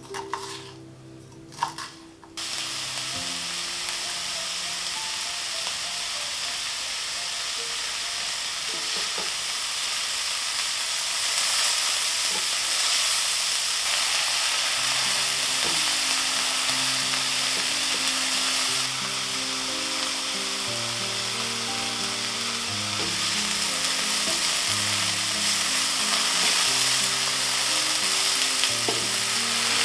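A few knife chops on a wooden cutting board, then about two seconds in, onion, grated carrot and diced red bell pepper start sizzling steadily as they fry in a pan and are stirred with a spatula.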